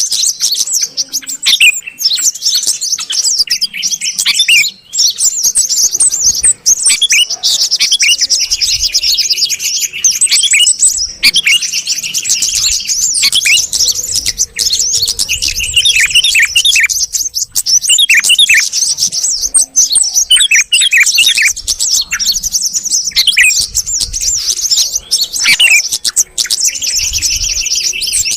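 A dense chorus of bulbuls, yellow-vented bulbul (trucuk) and sooty-headed bulbul (kutilang), chattering and chirping in rapid overlapping phrases with only brief pauses. It is a bird-lure recording meant to draw small birds in.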